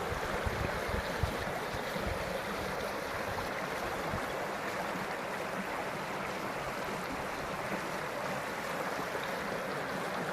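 Spring stream running steadily, with a few low bumps in the first two seconds.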